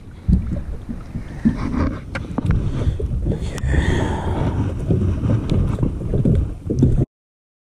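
Wind rumbling on the microphone, with scattered knocks and bumps as the kayak is handled against a concrete ramp. The sound cuts off suddenly near the end.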